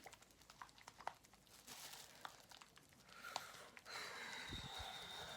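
Faint clicks and crinkling of a plastic hair-dye applicator bottle being handled and shaken to mix the colour cream into the developer, with a longer patch of soft steady rustle near the end.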